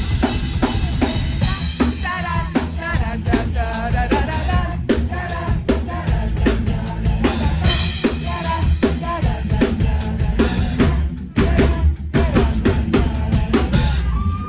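Live band playing the final bars of a song: a loud drum kit beating out kick and snare over bass, with pitched vocal or instrumental lines above. There is a short break about eleven seconds in.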